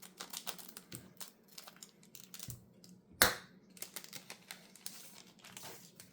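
Magic: The Gathering booster pack being opened: the foil wrapper crinkling and cards rustling and clicking as they are handled, with one sharp, loud snap about three seconds in.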